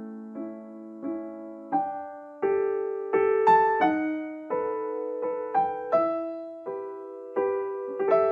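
Soft background music on piano or electric piano: single notes and chords played slowly, each note fading after it is struck.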